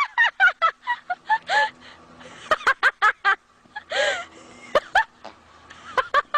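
A bird giving a rapid run of short pitched calls in quick bursts with short pauses, among sharp clicks.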